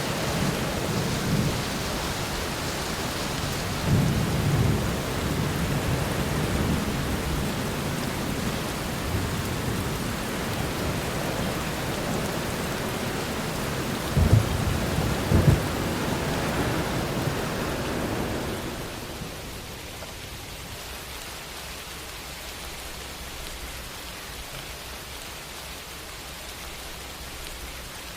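A thunderstorm: steady heavy rain with low rumbling thunder, and two sharp cracks of thunder about halfway through. About two-thirds of the way in the storm noise drops away, leaving softer, steady rainfall.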